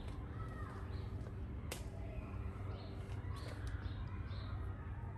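A few faint, short curved calls over a steady low background rumble, with a single sharp click about two seconds in.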